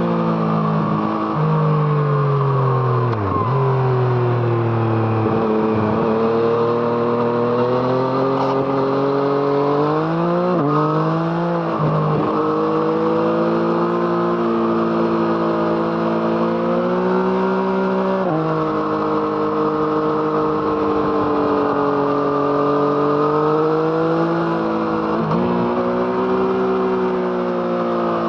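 Onboard sound of a 2017 Yamaha MT-09's three-cylinder engine through an Arrow Thunder exhaust, ridden on a winding road. The revs climb and fall steadily, with sudden drops and jumps in pitch several times as the rider shifts gear and rolls off into bends.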